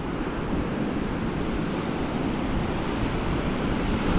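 Small surf waves washing up onto a sandy beach in a steady hiss, with wind rumbling on the microphone.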